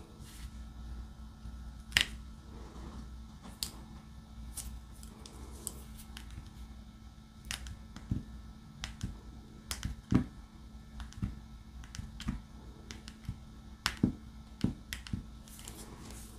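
Irregular sharp clicks and light taps of a diamond painting drill pen picking up resin drills and pressing them onto the sticky canvas, over a faint steady hum.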